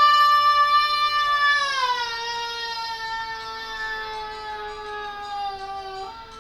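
A person's voice holding one long, high wailing note that slides slowly down in pitch, with a small jump near the end. It is loudest at the start.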